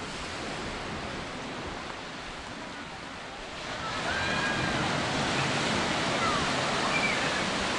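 Surf washing onto a sandy beach: a steady rush that grows louder about halfway through, with a few faint high chirps over it near the end.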